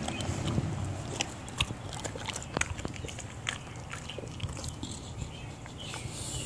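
A bulldog licking and biting at an apple: irregular wet mouth clicks and crunches at an uneven pace, over a steady low rumble.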